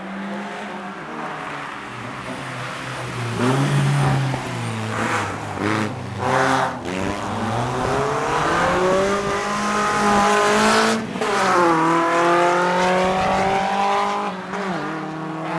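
BMW E30 track car's engine revving hard. Its pitch rises and dips a few times, then climbs steadily, dropping with a gear change about eleven seconds in and again near the end.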